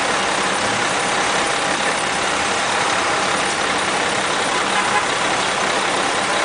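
Steady din of city street traffic, with cars and taxis running.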